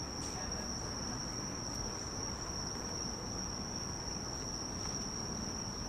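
Night insects trilling in a steady, unbroken high-pitched drone over a low background rumble.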